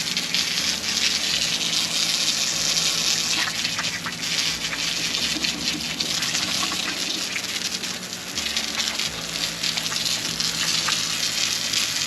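Steady hissing spray of liquid washing over a transmission case that is being degreased, with a low hum underneath.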